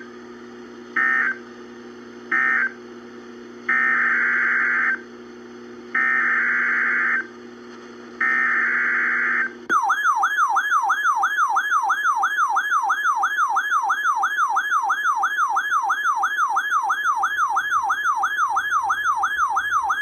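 Emergency Alert System data tones: short end-of-message bursts, then three longer SAME header bursts of about a second each, marking the close of one warning and the start of the next. About halfway through, a fast warbling siren-like attention tone takes over, sweeping up and down about three times a second, and cuts off at the end.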